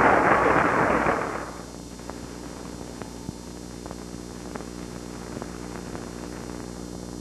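Crowd noise dies away in the first second and a half, leaving a steady mains hum with a few faint clicks on the old recording.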